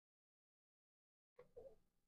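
Near silence, with a faint short click and soft tap near the end as the watch is handled.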